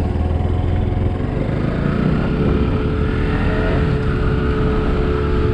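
Bajaj Pulsar NS200 motorcycle's single-cylinder engine running steadily at cruising speed, mixed with wind and road noise over the microphone.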